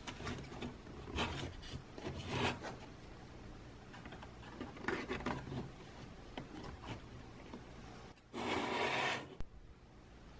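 Small laser-cut plywood kit parts handled and pressed into their slots: soft rubbing and scraping of wood on wood with scattered small clicks, and a louder stretch of rubbing lasting about a second near the end.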